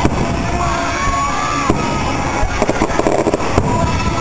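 Aerial firework shells bursting, with several sharp bangs about halfway through and again near the end, under loud music with a held melody.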